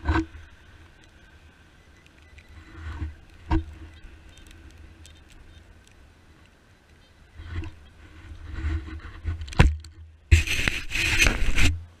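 Digging into turf and soil with a hand tool: several sharp knocks as the tool strikes the ground and spells of scraping soil. A louder spell of scraping and rustling comes near the end, over a steady low rumble.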